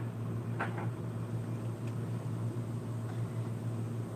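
Steady low hum of indoor background noise, with a brief faint sound about half a second in.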